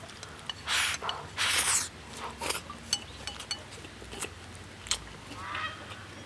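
Close-up eating sounds of a person chewing pork belly, rice and stir-fried water spinach: two loud wet slurping, smacking bursts in the first two seconds and a shorter one after, then quieter chewing clicks. A short pitched call is heard near the end.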